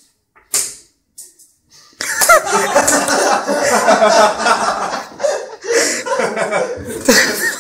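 People break into loud, hearty laughter about two seconds in, after a brief sharp sound; the laughter eases for a moment midway and then picks up again.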